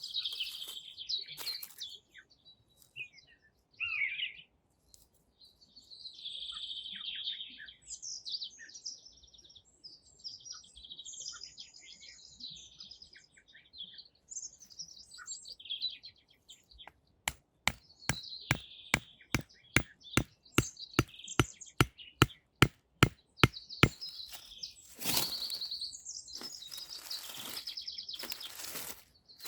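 Small songbirds singing and chirping in short phrases. In the second half a run of sharp, evenly spaced knocks, about three a second for some seven seconds, is louder than the birds. Short bursts of rustling noise come near the end.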